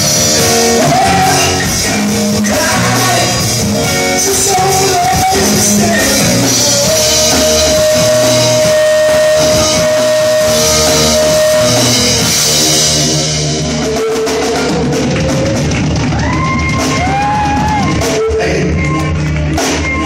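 A rock band playing an acoustic-guitar arrangement of a song, with a drum kit and a singer. The singer holds one long note about a third of the way in. The cymbals stop about two-thirds of the way through, and the singing slides between notes after that.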